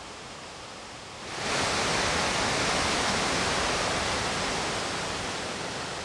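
Rushing water of the River Tees in the gorge below High Force waterfall, a steady hiss-like noise. It is faint at first, comes in much louder about a second and a half in, then slowly eases off.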